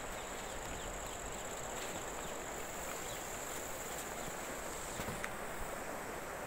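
Outdoor ambience of insects chirring steadily in a high, even band over a soft background hiss, with two faint clicks about five seconds in.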